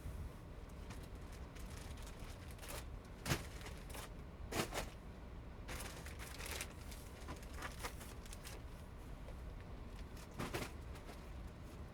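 Faint rustling and scattered short clicks, the clearest about three, four and a half, six and a half and ten and a half seconds in, over a steady low rumble.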